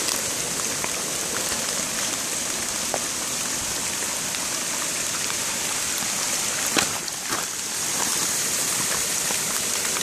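A creek swollen by heavy rain, a steady rushing hiss of water, with a couple of short knocks about seven seconds in.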